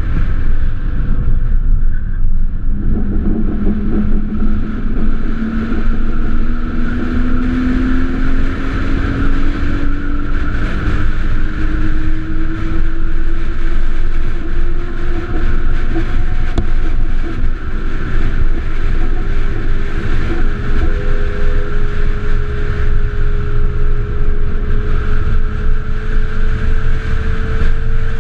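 Solar car's electric drive motor whining over heavy wind and road rumble on the onboard microphone. The whine sets in about three seconds in and climbs slowly in pitch as the car gathers speed.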